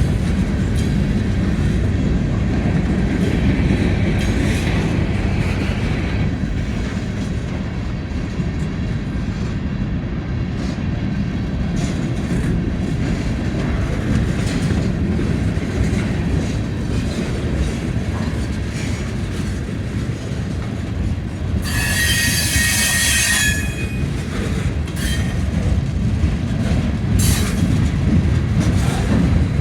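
Freight train cars rolling past: a steady low rumble with scattered wheel clicks over the rail joints. Partway through comes a shrill wheel squeal lasting about two seconds.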